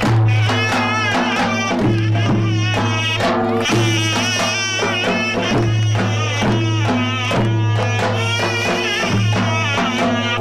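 Traditional Turkish folk music: an ornamented, sliding melody over a steady low drone, with regular percussion.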